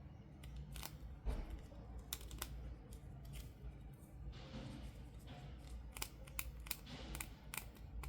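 Small sharp clicks and taps of plastic toy parts and packaging being handled, with a brief rustle about halfway through.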